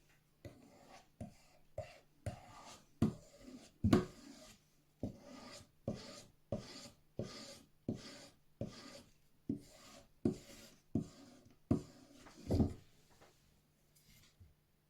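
Daicamping DL30 multitool's knife blade being stropped on a plain leather strap: a regular run of short scraping strokes, about two a second, that stops near the end. The stropping hones an edge that was not fully sharp out of the box.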